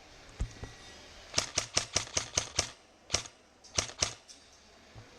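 Airsoft gun firing: a quick string of about eight sharp shots in just over a second, then a single shot and a pair of shots.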